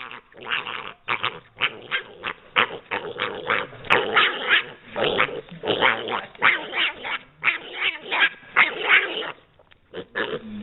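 A dog barking and growling in a fast run of short calls, several a second, easing off briefly near the end.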